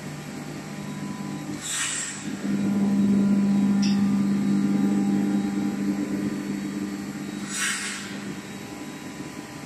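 Cabinet-enclosed industrial machines running with a steady hum carrying a strong low tone. The hum grows louder about two and a half seconds in and eases off after about six seconds. Two short hisses come through, about two seconds in and about eight seconds in.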